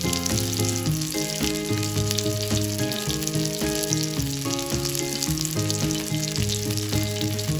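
Masala-coated seer fish (vanjaram) steak shallow-frying in oil in a pan, the oil sizzling and crackling steadily, with background music of sustained low notes underneath.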